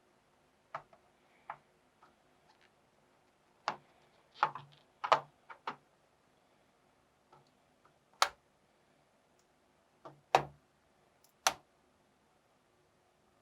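Sharp plastic clicks and snaps at irregular intervals as the bottom case of an Asus TUF Gaming FX506LI laptop is pried off with a tool, its retaining clips popping loose one by one.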